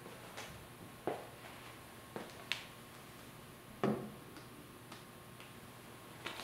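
Six or so sharp, separate clicks and knocks. The loudest, about four seconds in and with a duller thud to it, is an egg being set down on a wooden tabletop.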